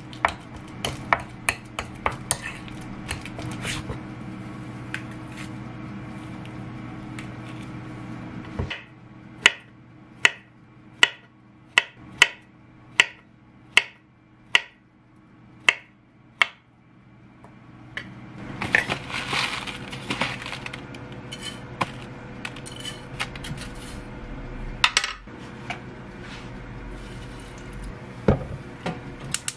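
A metal fork clicking and scraping against a ceramic bowl while mashing banana, then a knife slicing a banana on a wooden cutting board, about eleven knocks at a steady pace of roughly one every 0.7 seconds. Later comes a stretch of rustling and scattered clinks as the oats and milk go into a pan.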